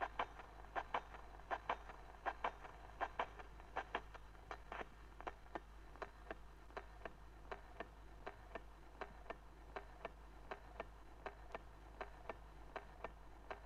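Steady ticking, about three sharp clicks a second, uneven and louder in the first few seconds and then regular, over a low steady hum.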